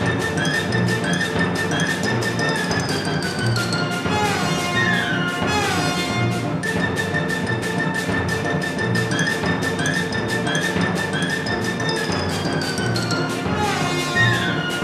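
Background music with a steady beat and descending melodic runs.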